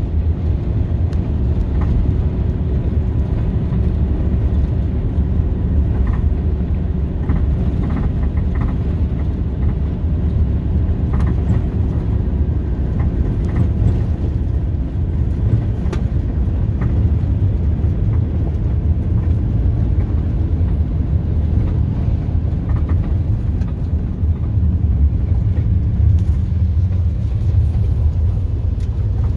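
A moving vehicle: a steady low rumble of engine and road noise, with a few faint clicks.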